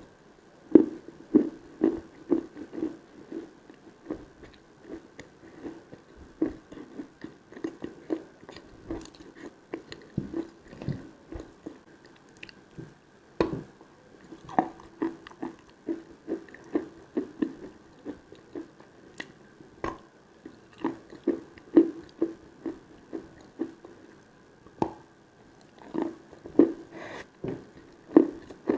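Close-up mouth sounds of someone biting and chewing Khrapovsky chalk: a steady run of crunchy chewing strokes, about two to three a second, with a few sharper, louder crunches along the way.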